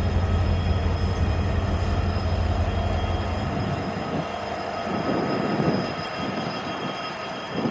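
Union Pacific diesel locomotive passing on a track beyond parked coal cars. A deep engine drone is strong for about the first three and a half seconds, then drops away to an uneven rumble, with a thin steady whine throughout.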